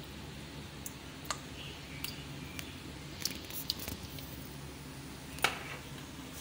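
Spoonfuls of yogurt squishing onto raw chicken pieces in a bowl, with a few light clicks of the metal spoon, the sharpest about five and a half seconds in, over a faint steady hum.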